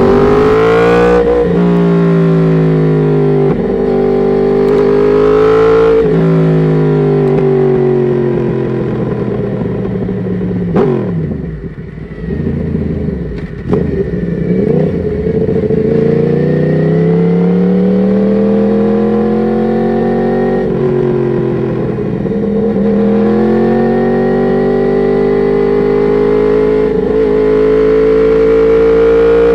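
Yamaha R1 inline-four with an Akrapovic exhaust, riding through the gears. The revs climb and break with quick upshifts in the first few seconds, then wind down on a long roll-off that turns rough and uneven midway. They pull up again, with a gear change a little after twenty seconds, and keep rising to the end.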